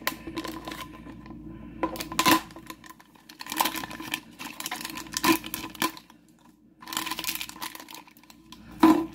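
Foil and plastic blind-bag toy packaging crinkling as it is handled and opened by hand, in irregular rustling bursts with two short pauses, about a second in and around six seconds in.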